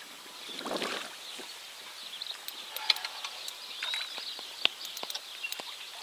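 A hooked river carp fighting at the surface close to the bank, churning the water with light splashes and sloshing, with a louder swish about a second in followed by scattered small splashes and clicks.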